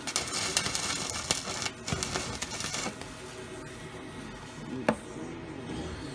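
Stick-welding arc with a 6010 electrode, crackling and sizzling for about three seconds and then cutting off as the rod is pulled away. A single sharp knock follows near the end.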